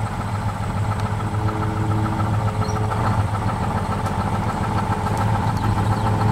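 LCVP Higgins landing craft's inboard engine running steadily at low speed, a low drone, while the boat is manoeuvred in toward the ramp. It grows slightly louder as the boat comes closer.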